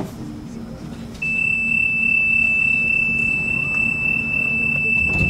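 Tram door-closing warning: one loud, steady high beep starts about a second in and holds, over the tram's low steady hum, signalling that the doors are about to close.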